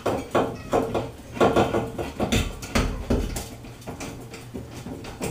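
Irregular light metallic clinks and knocks: a screwdriver and screw handled against an aluminium shower curtain rod and its end bracket as the rod is positioned on the wall.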